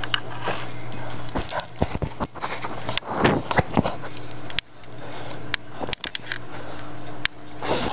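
A Boston terrier whimpering and whining in short, uneven spells, busiest about three seconds in, mixed with scuffling and a few sharp clicks.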